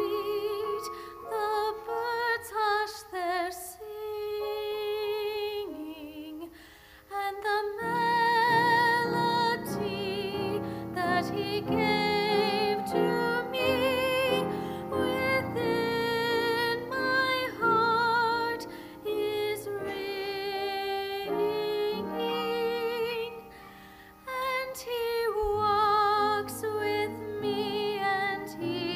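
A woman singing a slow solo with vibrato, with instrumental accompaniment that fills out in the low notes about eight seconds in.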